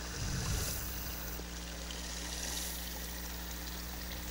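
Small stream of shallow running water trickling steadily, with a brief louder rustle about half a second in.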